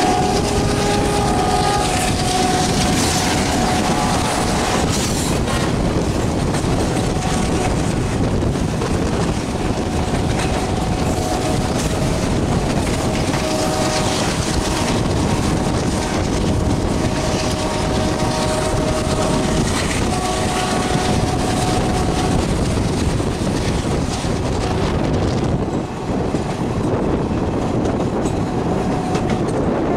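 Passenger train running at speed, heard from an open coach door: a steady rush of wheel and rail noise with clattering over the rail joints. A freight train passes on the next track, and short high-pitched tones come and go every few seconds.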